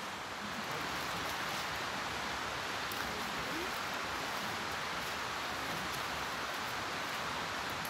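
River water running steadily, an even rushing hiss.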